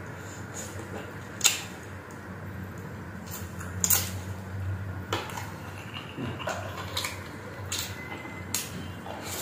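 Close-miked eating sounds of a person chewing chicken adobo wings and rice by hand: chewing with a series of sharp lip smacks every second or so, the loudest about one and a half and four seconds in.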